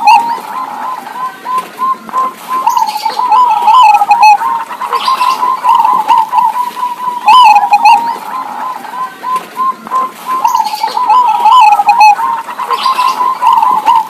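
Zebra doves cooing, several birds answering one another with overlapping trilled coo phrases that repeat every few seconds.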